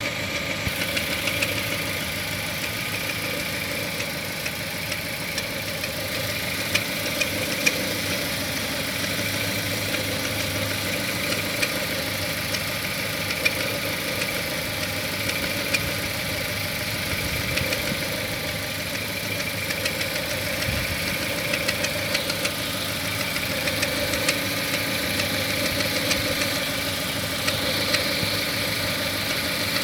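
2011 Chevrolet Cruze petrol engine idling steadily, with a fine repetitive knocking running through it. The owner puts the knock down to the timing drive and says it was faint from new and has grown with mileage, now at 36,000 km.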